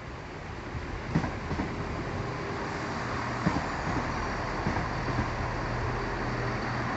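ScotRail Class 170 Turbostar diesel multiple unit passing: a steady engine and rail drone that grows louder, with a few sharp clicks of wheels over rail joints.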